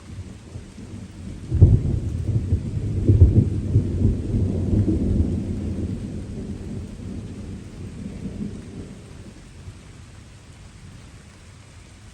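A rumble of thunder breaks in suddenly about a second and a half in, swells again a couple of seconds later, then rolls away and fades over several seconds, over the steady hiss of light rain.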